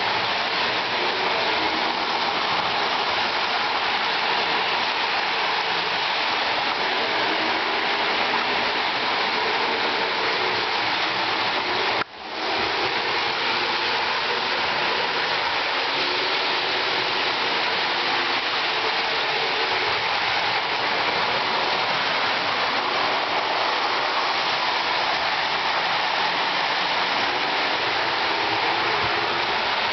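Lionel 2026 2-6-2 Prairie O-gauge toy steam locomotive and its passenger cars running on three-rail track: a steady, loud rushing roar of wheels and motor. The sound drops out briefly about twelve seconds in.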